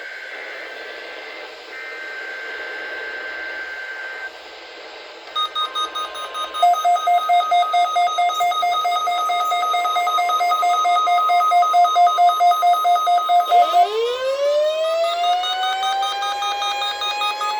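Electronic alarm tones: a steady high beep for about the first four seconds, then a fast-pulsing beeping alarm from about five seconds in. Near the end a siren starts winding up in rising sweeps.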